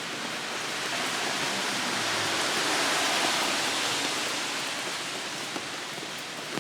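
Rain falling, a steady hiss that grows louder toward the middle and eases off again, with a single sharp click at the very end.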